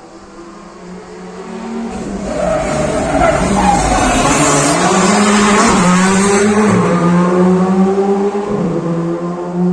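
An R5 rally car's turbocharged 1.6-litre four-cylinder engine approaching and passing at full speed on a tarmac stage, with tyre noise. The sound builds over the first few seconds, stays loud with the engine pitch stepping up and down through gear changes, then falls away.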